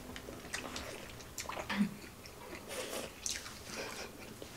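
Close-up eating sounds: chewing with small scattered clicks of a spoon and chopsticks against a plate.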